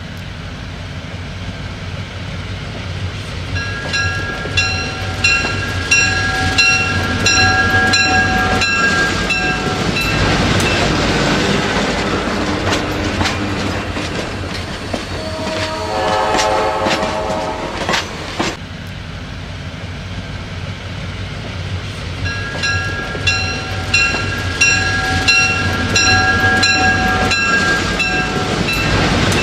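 Diesel passenger locomotive running with a low rumble, its multi-chime air horn sounding a string of short blasts over a held chord. The same horn sequence comes again about twenty seconds later. A lower-pitched, wavering tone sounds for about three seconds in the middle.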